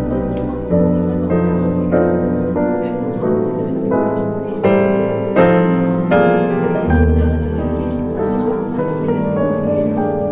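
Background piano music, a gentle melody of chords over sustained low bass notes.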